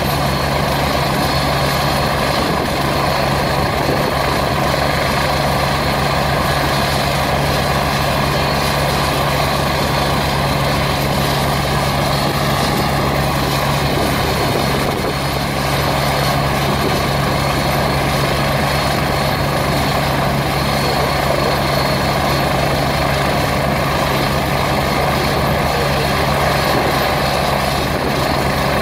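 Agusta A109 helicopter running on the ground with its rotor turning: a steady turbine whine over constant rotor noise, at ground-run speed before lift-off.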